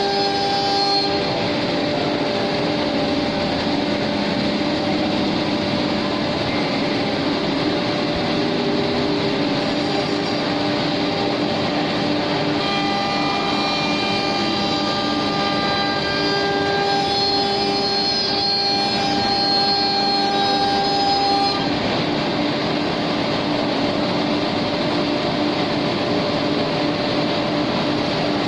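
CNC router's 7.5 kW spindle cutting plywood, a steady machine whine over broad cutting and extraction noise. Its higher tones drop away about a second in, come back about halfway through and cut off about three quarters of the way through as the cut changes.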